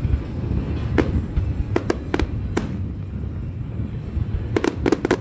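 Aerial fireworks shells bursting overhead: sharp bangs at irregular intervals over a continuous low rumble, with a quick run of reports near the end.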